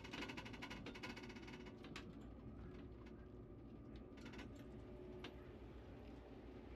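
Quiet, steady low rumble of a high-speed train in motion, heard inside its toilet compartment. A rapid mechanical rattle fills the first couple of seconds, and a few short clicks follow, one near the middle as the door button is pressed.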